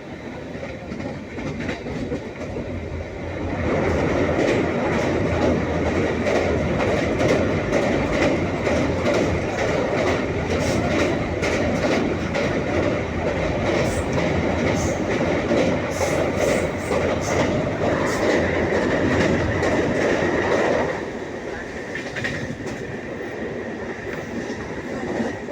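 Train running along the track: a steady rumble that swells about three and a half seconds in and drops back around twenty seconds later, with the clickety-clack of wheels over rail joints in the loud middle stretch.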